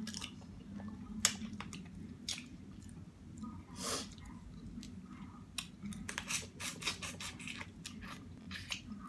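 Close-miked chewing of seafood-boil food, with wet mouth noises and scattered sharp clicks and smacks, a quick run of them about two-thirds of the way through.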